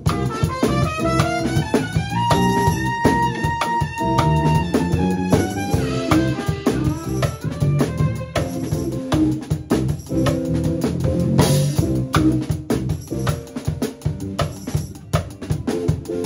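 Live funk band playing an improvised groove: busy drum kit and bass line under a melodic lead line that holds one long note a couple of seconds in.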